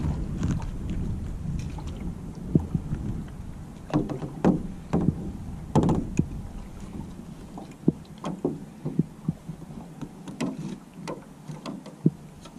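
Water slapping and splashing against the side of a small boat in irregular slaps, over a low rumble that eases off after about four seconds.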